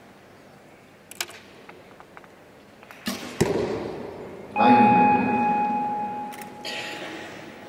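A recurve bow shot: a sharp release sound a little after three seconds. About a second and a half later comes a louder sharp sound that rings on with a steady tone and fades over about two seconds.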